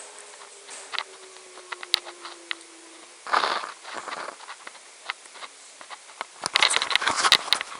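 A distant outdoor tornado warning siren winding down: a faint tone falling slowly in pitch that fades out about three seconds in. Scattered taps of raindrops run throughout, with a short burst of rustling clatter near the end, the loudest sound.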